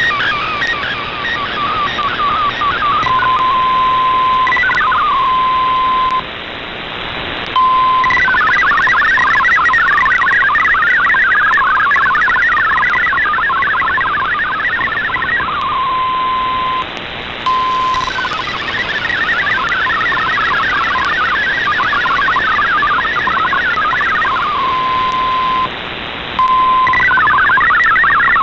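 MFSK64 digital data transmission received on a shortwave radio: a fast, busy warble of many tones hopping between about 1 and 2 kHz, broken several times by a steady single tone and once by a second or so of plain hiss, over constant band noise.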